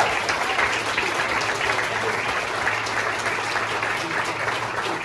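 Audience of dinner guests applauding: many people clapping steadily.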